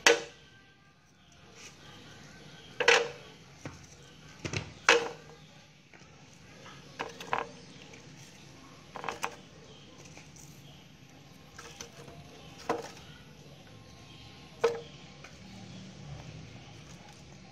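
Chunks of peeled purple yam set one by one onto a perforated stainless steel steamer tray: about a dozen short knocks and clatters at irregular intervals, a second or two apart, the loudest at the very start and around three and five seconds in.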